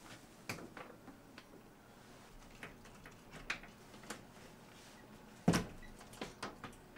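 Handling noise as a large light-bulb lamp is hung up and a long wand of lights is lifted: scattered light clicks and knocks, with one louder knock about five and a half seconds in followed by a few small clatters.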